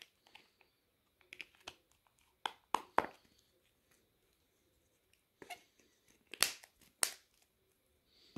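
Sharp plastic clicks and taps from a Casio flip phone being handled as its battery and back cover are fitted and snapped in place, about nine short clicks spread out with quiet between, the loudest two near the end.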